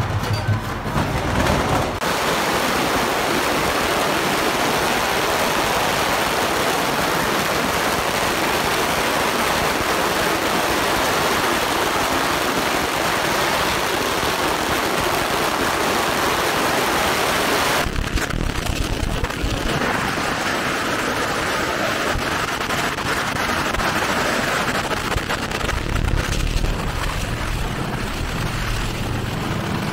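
Long strings of firecrackers going off in a continuous dense crackle. Past the halfway point the crackle turns duller and thinner.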